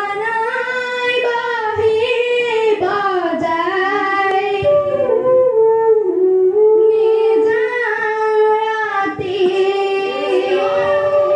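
A boy singing the opening line of an Assamese dihanam devotional chant solo, one voice in long, wavering, held notes.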